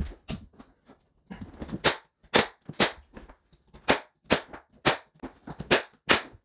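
Pneumatic 2-inch finish nailer firing nails through baseboard into the wall studs: a rapid run of sharp shots, roughly two a second, starting about two seconds in.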